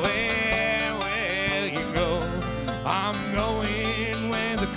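A bluegrass string band playing live: banjo and guitar picking over a low bass line, with a wavering melody line on top.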